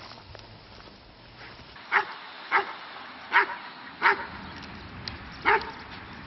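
Police dog barking five times, short single barks spaced unevenly over about three and a half seconds.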